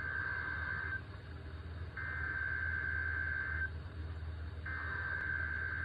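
Emergency Alert System SAME header: the digital data burst of screechy, buzzing tones sent three times, each lasting about a second and a half with roughly a second's gap between, received over the radio with a low hum underneath. The header encodes the alert, here a Child Abduction Emergency (AMBER Alert).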